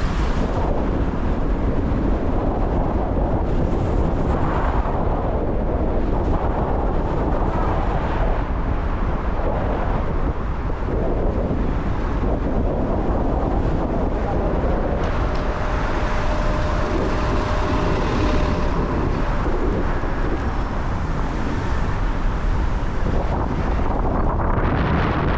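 Car driving on rain-wet city streets: steady road and tyre noise with low wind rumble on the microphone. A faint steady tone sounds for a few seconds in the middle, and a hiss swells near the end as if a vehicle passes.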